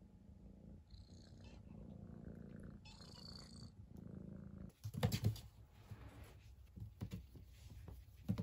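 A cat purring steadily for the first four and a half seconds. About five seconds in comes a cluster of loud thumps, followed by a few lighter knocks.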